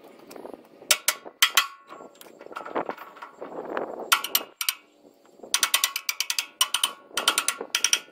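Hand ratchet wrench clicking in repeated short bursts of rapid clicks as it is swung back and forth, with duller handling and scraping noise between the bursts.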